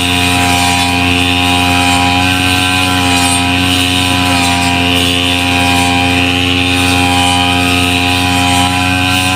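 Small engine of a grass-cutting machine running steadily at an even, unchanging speed.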